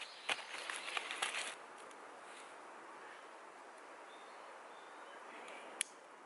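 A few crunching rustles on dry ground for about the first second and a half, then a quiet outdoor background with one sharp click near the end.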